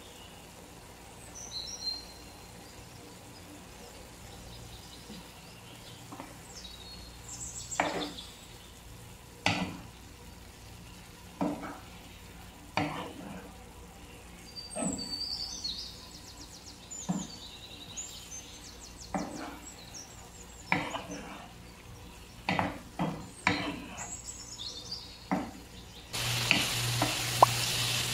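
Wooden spatula stirring strips of beef liver and onion in a frying pan, with short scrapes and knocks against the pan every second or two and bird chirps over a faint background. About two seconds before the end a loud, steady frying sizzle starts abruptly as the stirring goes on.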